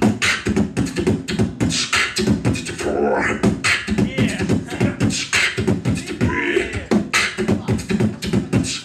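A beatboxer performing vocal percussion: a fast, steady run of sharp mouth-made drum hits, several a second, mixed with short voiced, pitched sounds.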